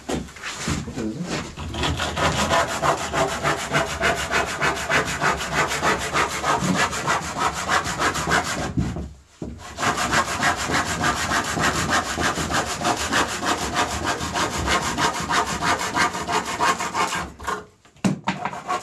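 Hand saw cutting through a split cedar ski blank in quick, regular strokes, with a short pause about nine seconds in; the sawing stops shortly before the end.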